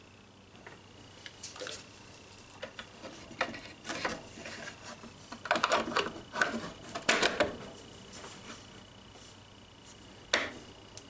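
Hard plastic clicking, knocking and rattling as a fish finder's gimbal mount and head unit are handled and fitted onto a plastic box. Scattered clicks give way to a busy run of knocks about six to seven and a half seconds in, with one sharp knock near the end.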